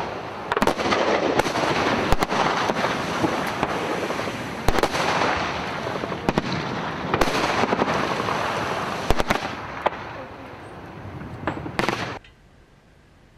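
Gunfire and explosions on a live-fire range: sharp shots at irregular intervals over a continuous rolling rumble of fire, cutting off abruptly near the end.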